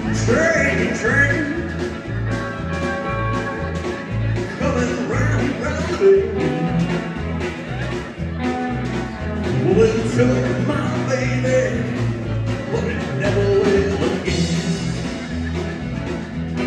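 Live rock and roll band playing: electric guitars, electric bass and drums keeping a steady beat, with a male singer singing over them.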